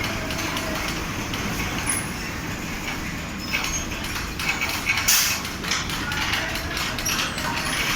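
Fabric spreader machine running amid steady factory machinery noise, with a spell of clattering in the second half and a short hiss about five seconds in.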